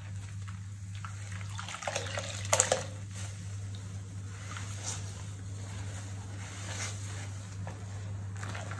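Wet sponges being squeezed and pressed in a sink of soapy water and washing-powder foam, squelching and sloshing. The loudest squelches come about two to three seconds in. A steady low hum runs underneath.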